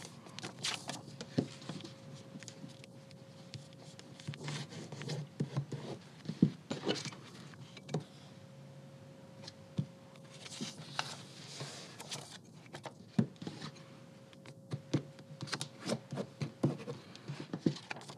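Book pages being folded by hand: paper rustling and sliding, with irregular taps and rubs as a thin metal ruler is laid against the page and a bone folder creases each fold.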